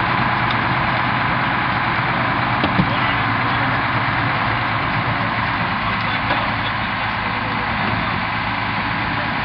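Steady engine drone of the power unit driving a hydraulic jaws-of-life rescue tool, with a few faint cracks about three seconds in.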